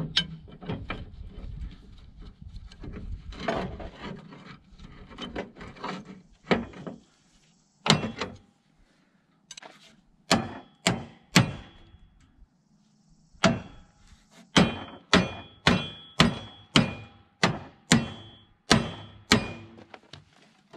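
Metal clanking and scraping as a large adjustable wrench levers at the bent steel edge of a cracked finish mower deck, then a small sledgehammer striking the steel over and over, each blow ringing, about two a second through the second half. The deck edge is being beaten back into shape where it cracked.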